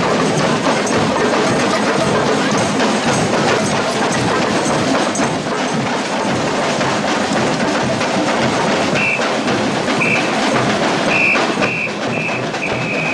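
Carnival parade percussion band drumming, a dense mass of rapid drum hits. From about nine seconds in, a whistle blows a series of short blasts, the last one held a little longer.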